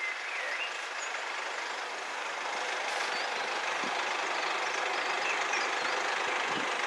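Chiltern Railways Class 168 diesel multiple unit pulling away, its engines running steadily and growing slightly louder.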